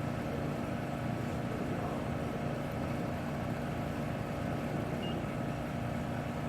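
Steady electrical hum with several held low tones from a Hughes HTT-1000-C04 solder power supply while it runs a heating program on a heat-bar fixture. A short, faint beep comes about five seconds in.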